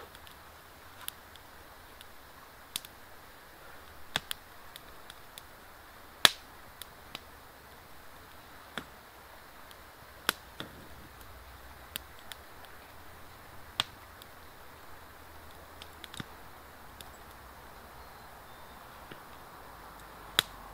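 Small campfire of wet wood crackling: sharp pops at irregular intervals over a faint steady hiss, the loudest about six seconds in.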